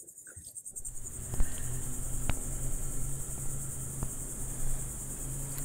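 Insects chirping in a steady, high-pitched, fast-pulsing trill. A low hum joins about a second in, with a few faint clicks.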